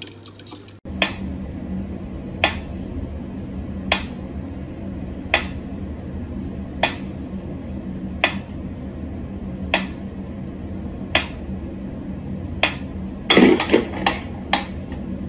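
Mechanical pendulum metronome ticking slowly and evenly, about one tick every second and a half, over a steady low hum. Near the end a quick flurry of louder knocks and clatter breaks in.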